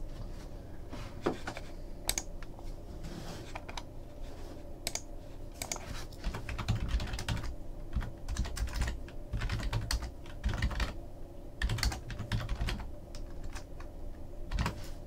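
Typing on a computer keyboard: irregular key clicks coming in quick runs with short pauses between them.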